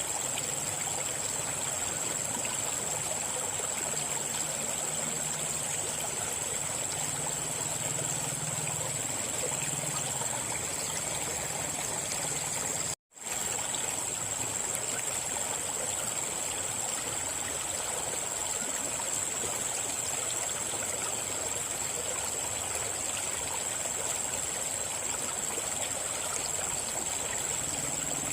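River water flowing steadily over its bed. The sound cuts out for an instant about halfway through.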